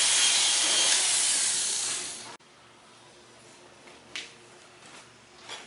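Hair dryer blowing a steady, loud rushing hiss over short-cut hair. The hiss cuts off abruptly about two seconds in, leaving low room tone with a few faint clicks.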